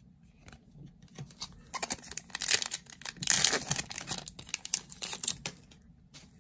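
A foil Yu-Gi-Oh Magnificent Mavens booster pack being torn open, the wrapper crinkling as it comes apart. It is a dense run of rough tearing and crackling, starting about two seconds in and loudest in the middle, with a few light ticks before it.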